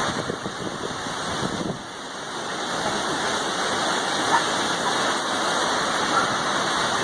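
Heavy rain driven by thunderstorm winds, a steady rush of noise that dips briefly about two seconds in.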